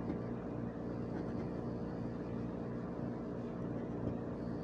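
Steady low background hum of room tone, with a couple of faint ticks and no scratching.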